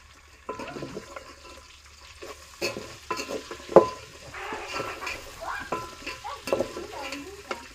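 Onions frying in a pan, sizzling, while a spoon stirs them and scrapes and clinks against the pan, with a few sharper knocks.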